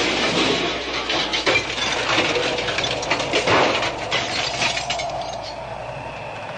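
Sound effect of a car crash into a telephone pole: glass shattering and pieces of glass and debris clinking down in a clatter of many small impacts that thins out and fades away over about five seconds.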